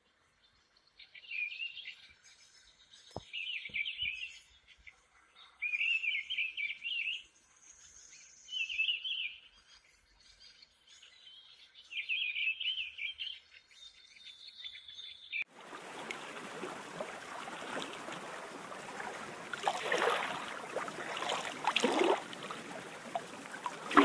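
A small songbird singing short warbling phrases of about a second, every few seconds. About two-thirds of the way in, the sound cuts abruptly to the steady rush of sea waves washing onto a pebble beach, surging now and then.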